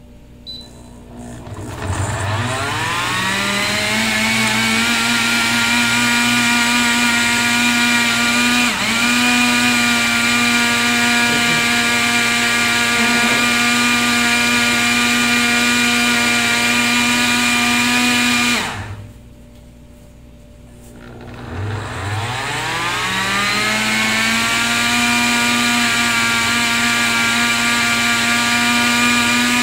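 Electric countertop blender motor blending a smoothie. It spins up with a rising whine, then runs at a steady high pitch. It cuts out about two-thirds of the way through and spins up again a few seconds later.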